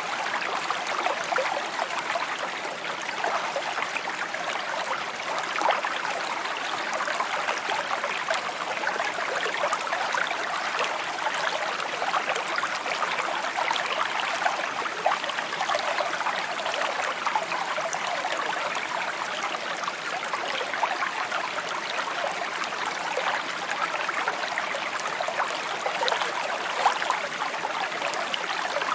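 Small stream babbling and trickling over stones: a steady, bright, splashy water sound with no let-up.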